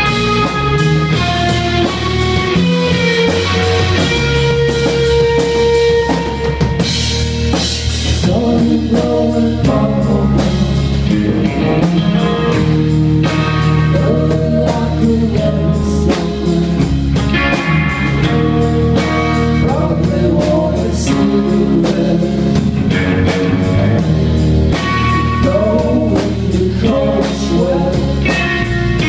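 Live rock band playing a song: distorted electric guitars and bass lines over a steadily played drum kit, with a voice singing.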